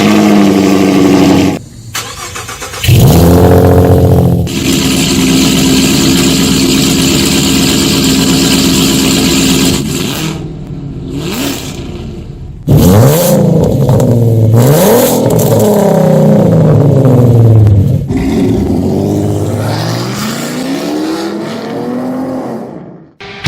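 A car engine running steadily, then revved up and down several times over the second half, its pitch rising and falling with each rev.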